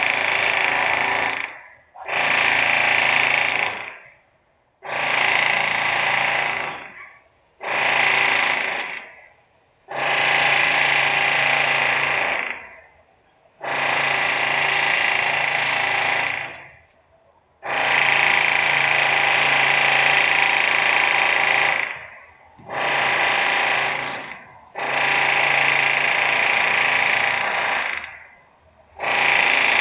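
Loud industrial machine noise in about ten on-off bursts, each running one to four seconds with a brief pause between, switching on sharply and tailing off at the end.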